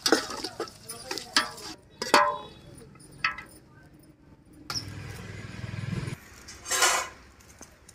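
A metal ladle clinking and scraping against a large steel cooking pot while stirring biryani masala, with a few sharp ringing clanks in the first two seconds. Later comes a low rumbling noise and a short, sharp scrape near the end.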